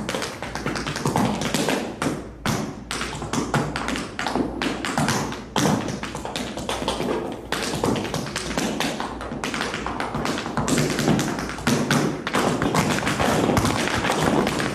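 Tap shoes striking a wooden floor in quick rhythmic steps. The taps grow denser over the last few seconds as a line of dancers taps together.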